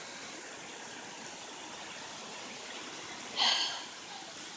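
Heavy rain pouring down as a steady hiss. About three and a half seconds in there is a brief breathy sound close by, louder than the rain.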